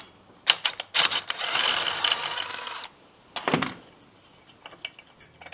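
A tool unscrewing the bolt of a clutch puller from a UTV's drive clutch. A few sharp clicks come first, then about two seconds of steady rapid mechanical rattling, then metal clinks as parts are handled.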